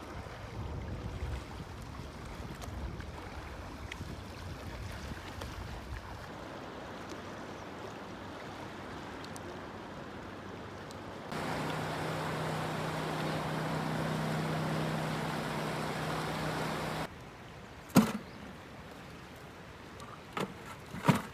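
River ambience: flowing water with some low rumble. For about six seconds in the middle a boat motor runs steadily at a low hum, then cuts off sharply. A few sharp knocks follow near the end.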